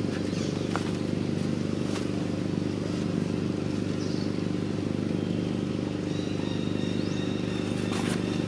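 A steady low motor hum, even and unbroken, with a few faint high chirps near the end.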